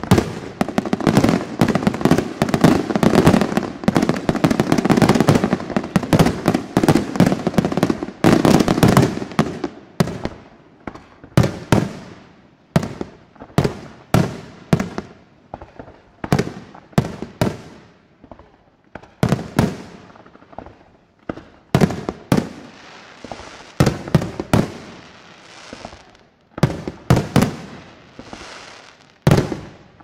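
Fireworks going off: a dense barrage of overlapping bangs and crackling for about the first ten seconds, then separate sharp bangs, often one or two a second with short gaps between.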